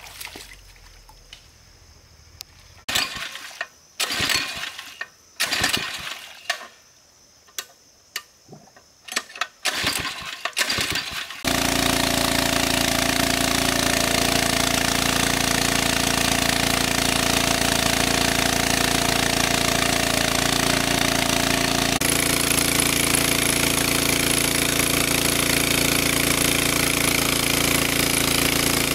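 Small petrol-engine water pump being started: several short bursts with gaps, then the engine catches about eleven seconds in and runs steadily and loudly while pumping water.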